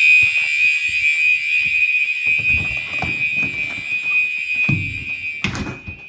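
Fire alarms sounding a steady high-pitched tone, with footsteps and handling thumps beneath it. A sharp knock comes about five and a half seconds in, after which the alarm sound drops away.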